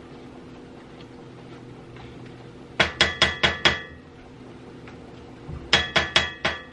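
A spatula knocking against a cast iron skillet during stirring: two quick runs of about five sharp, ringing clinks, about five a second, the first near the middle and the second near the end. A faint steady hum runs underneath.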